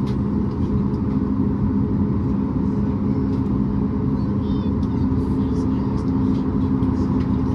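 Steady drone heard inside the cabin of a Boeing 737 MAX 8 with its CFM LEAP-1B engines idling while stationary before taxi, with several constant low hum tones over an even rush of noise.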